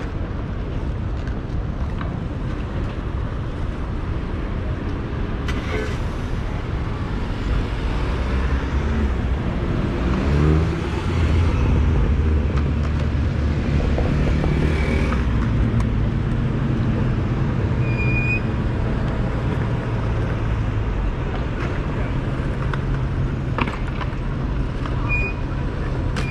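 Road traffic on a busy city street, with cars and a pickup truck driving past. One vehicle accelerates with a rising engine note about ten seconds in, the loudest moment.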